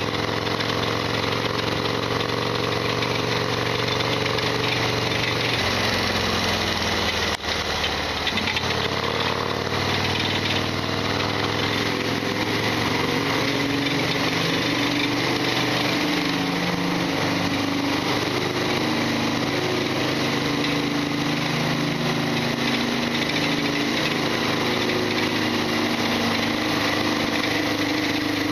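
Harley-Davidson Sportster XL1200's air-cooled V-twin engine running under way, loud and rattly: the bike's well-known clattering noise. The engine note falls about six seconds in, breaks off for a moment at about seven and a half seconds, then climbs again and holds steady.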